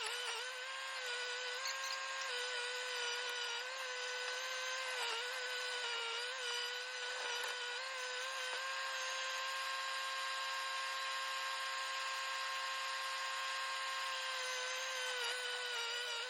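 High-pitched mechanical whine from a hydraulic post-hole auger drive, running steadily at one pitch. It wavers slightly in the first half and holds very even for several seconds later on.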